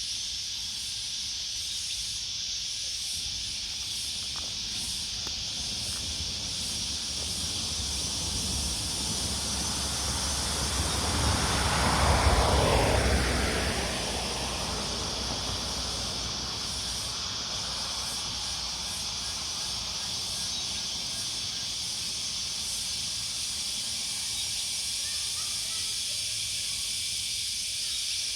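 A single vehicle passes on a road: its tyre and engine noise swells over several seconds, peaks about twelve seconds in with a falling pitch as it goes by, and fades away. Under it a steady high insect chorus carries on throughout.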